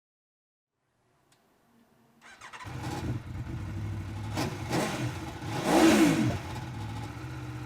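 2017 Aprilia Tuono V4 1100 RR's 1077cc V4 engine starting up about two seconds in, then idling with a few quick throttle blips, the biggest rev about three-quarters of the way through, before settling back to a steady idle.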